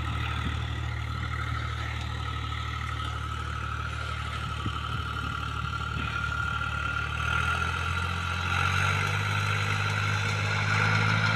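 Diesel tractor engine running steadily while pulling a cultivator across a field. About eight seconds in, the engine note rises in pitch and grows louder.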